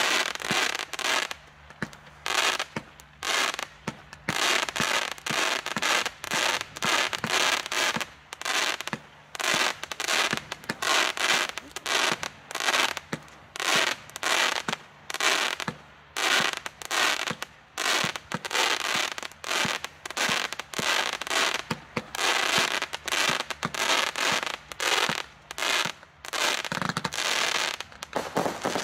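A Keller 'Master of Darkness' 49-shot consumer firework battery of 25 mm calibre firing its shots in a steady string, about one to two bangs a second, each a short sharp report.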